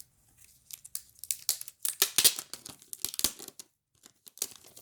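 Plastic wrapping torn open and crinkled by hand: a run of short crackling rips, a brief pause, then more crinkling near the end.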